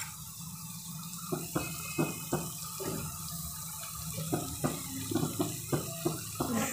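Golden-brown chopped onions frying in hot mustard oil in a kadhai over a low flame: a steady soft sizzle with scattered small crackles, as ground coriander, turmeric and red chilli are added.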